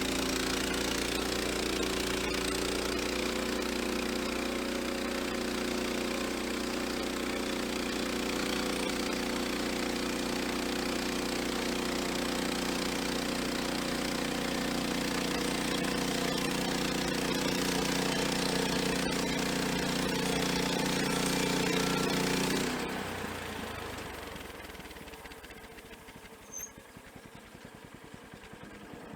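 An engine running steadily at a constant speed, then shut off about 23 seconds in. A much quieter background follows, with a single click a few seconds later.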